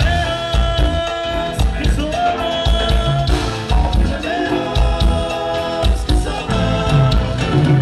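Live Tierra Caliente dance band playing: held notes from the saxophones over electric guitar, bass, congas and drum kit, with a steady pulsing beat.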